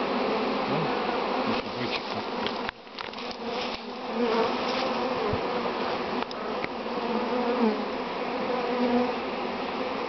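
A large mass of honeybees buzzing, many of them in flight: a dense, steady hum with several wavering pitches.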